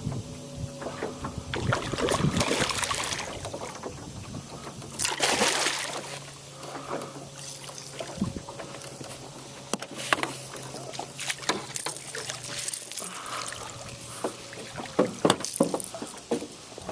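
Water splashing in several bursts, the two loudest about two and five seconds in, over a steady low hum, with a few sharp clicks and knocks later on.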